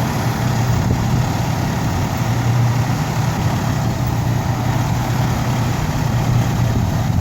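Fire truck's diesel engine idling steadily.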